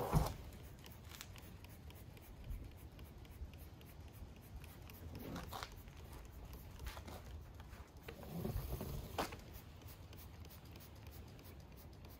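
A sharp knock just after the start, then faint handling clicks and a few short hisses of a hand pump sprayer spraying awning protectant onto an applicator pad.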